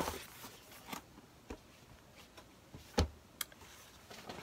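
Cardboard box of airbrush paint bottles being handled: light rustles and knocks, then one heavier thump about three seconds in, followed by a sharp click.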